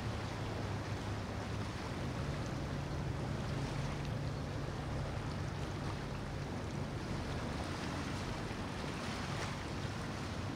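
Low, steady hum of a passing yacht's engines over the hiss of wind and lapping water; the hum fades out about seven seconds in.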